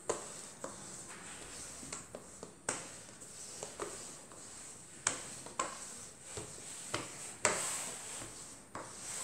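Metal rolling pin rolling yeast dough out on a floured wooden board: soft rolling with irregular short knocks, about ten, as the pin is pressed, lifted and set down again.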